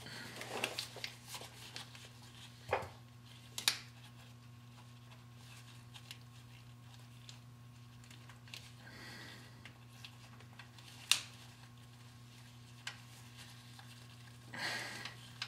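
Faint rustling of nitrile gloves and a few small sharp clicks as an oil pressure switch is threaded by hand into the engine block, over a steady low hum.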